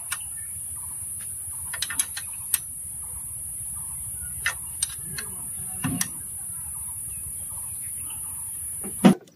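Scattered sharp clicks and taps of tools and metal engine parts being handled, over a steady high-pitched hiss, with a heavier knock near the end.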